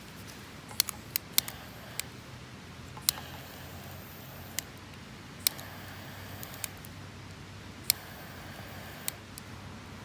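Wood campfire crackling: about a dozen sharp, irregularly spaced pops over a steady low hiss.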